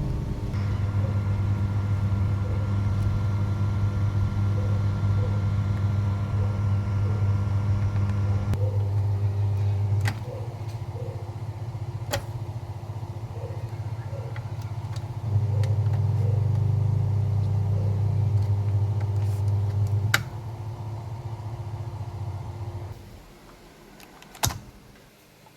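California amplifier humming through its speaker: a steady low hum with overtones, the fault being repaired. The hum shifts in strength a few times, with a sharp click at each change, and dies away about 23 seconds in, leaving only a faint click.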